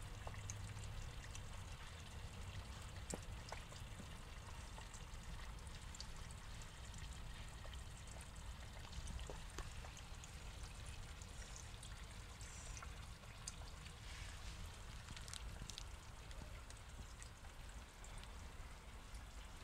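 Faint steady trickling of water in a small garden turtle pond, with scattered soft clicks and ticks.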